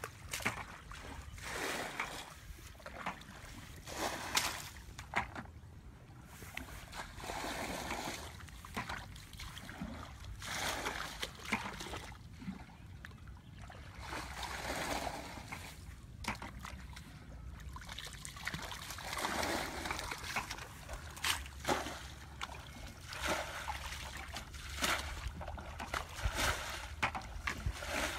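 Muddy water scooped up with a plastic bucket and flung out in repeated splashes every one to three seconds, as a shallow flooded channel is bailed out.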